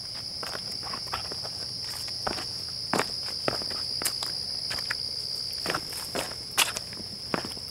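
Footsteps on a rocky dirt trail, an uneven walking rhythm of scuffs and stone clicks, over a steady high-pitched chorus of night insects.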